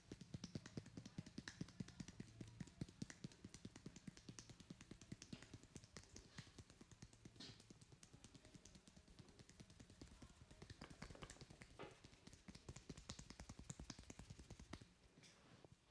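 Hands patting and tapping on skin in a quick, rhythmic run of soft slaps during a hand massage, several a second, dying away near the end.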